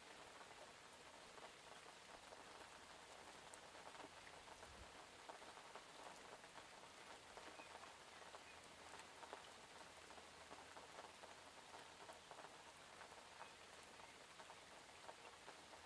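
Faint, steady rain: an even hiss dotted with many small taps of individual drops landing.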